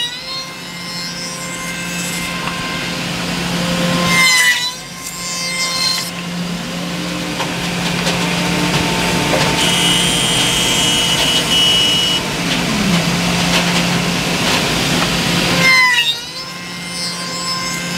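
CNC miter door machine's motor-driven circular saw blades running steadily and cutting miters in wooden door-frame pieces. There are three cuts, near the start, about four seconds in and near the end, each with the blade's pitch dropping as it bites into the wood.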